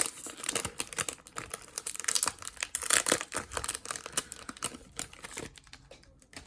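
Rapid, irregular clicking and crinkling of baseball cards and their pack wrapper being handled, the cards flicked and shuffled through one by one; the clicks thin out near the end.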